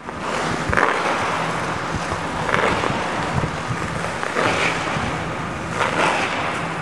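Hockey skate blades scraping the ice as a skater strides backward, with a louder scrape on each push about every two seconds over a steady hiss.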